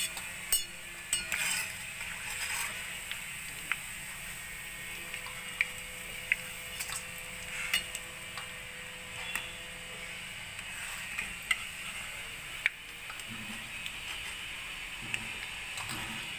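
Gathia deep-frying in hot oil: a steady sizzle, with sharp clinks of metal utensils against steel every second or two.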